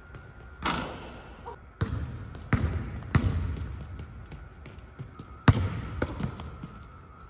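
Basketball bouncing on a hardwood court, several irregular thumps with an echoing tail in a large empty arena, with a few short high sneaker squeaks in the middle.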